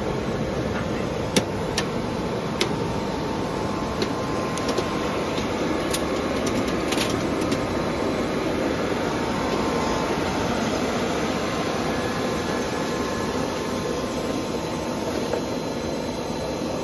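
MPP plastic pipe extrusion line running: a steady machinery din with a few sharp clicks in the first half.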